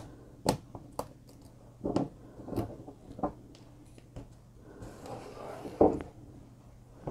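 Irregular light taps and clicks of small crafting handling: a pen-style pickup tool and the paper backing of foam adhesive dimensionals being worked on a card on a tabletop, with a faint steady hum underneath.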